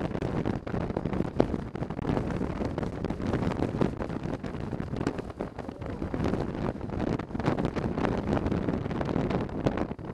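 Wind buffeting the microphone on a motorcycle riding at road speed: a dense, low rushing noise broken by frequent crackling pops.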